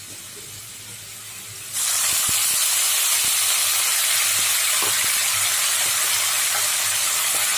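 Wet ginger-garlic-coriander paste hitting hot oil with onions in a frying pan: a quiet sizzle jumps suddenly to a loud, steady hiss about two seconds in.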